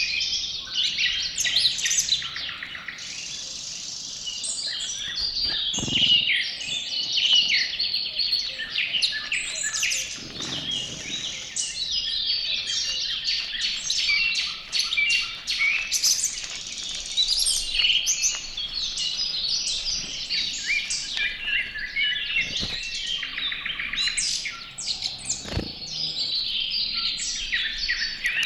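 Many small songbirds chirping and singing over one another without a break, with a few brief dull knocks mixed in.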